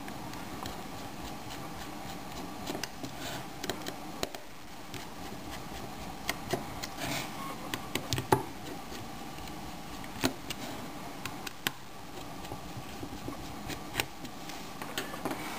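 Scattered light clicks and scrapes of a small precision screwdriver working the tiny screws out of a portable media player's metal hard-drive shield, over a steady background hiss. The sharpest click comes about eight seconds in.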